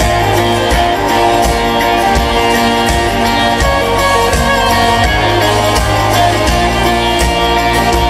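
Live rock band playing through a festival PA: electric guitar, bass and drums, with a steady beat of drum and cymbal hits.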